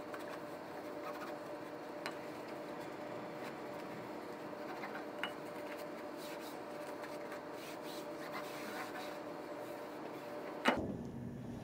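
Hands rubbing and pulling wool billiard cloth as it is stretched and smoothed over the table bed, with a few light ticks, over a steady hum. A sharp click near the end, where the background sound changes abruptly.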